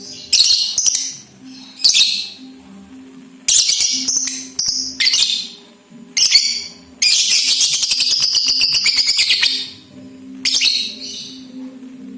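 Young lovebird calling in shrill, high chirps and short bursts, then a rapid chattering trill about two and a half seconds long, the drawn-out 'ngekek' song that lovebird keepers try to bring out.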